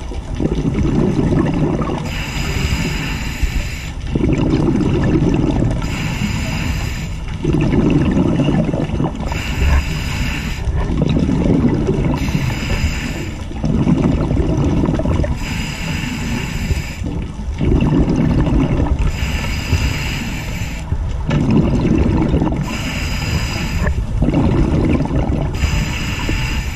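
Scuba diver breathing underwater through a regulator: a hissing inhale alternates with a low bubbling burst of exhaled bubbles. About eight breaths come evenly, one every three seconds or so.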